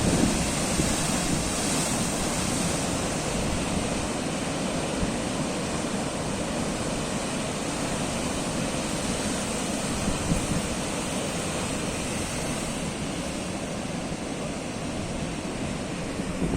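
Sea waves breaking and washing in a steady surf rush, with a low rumble of wind on the microphone.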